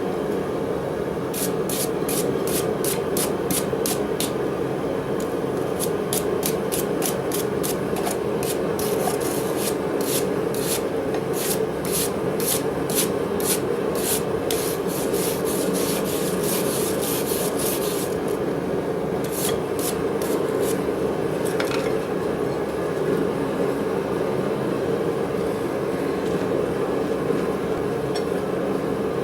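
Rapid, regular rubbing or scraping strokes, about three a second, over a steady rushing noise. The strokes stop about two-thirds of the way through, leaving only the steady noise.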